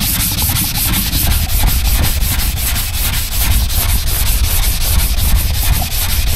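Hand sanding car bodywork with 180-grit sticky-back sandpaper: a rasping hiss in quick, even back-and-forth strokes, about six or seven a second. The 180 grit is knocking down the high edges in the bodywork.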